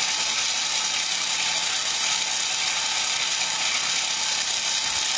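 Small electric corn puffing machine running steadily, its screw and die pushing out puffed corn with a continuous rattling, grinding mechanical noise over a faint steady hum.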